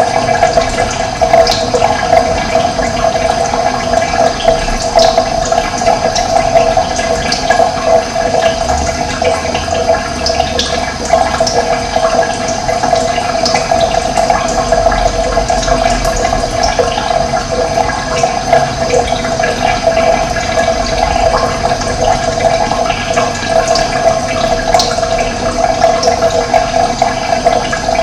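Running water flowing steadily, a continuous loud rush and gurgle with small splashes over it.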